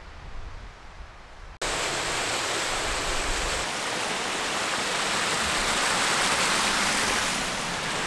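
A faint low rumble of wind, then an abrupt cut about one and a half seconds in to the steady rushing hiss of a small mountain stream cascading over rocks, a little louder toward the middle.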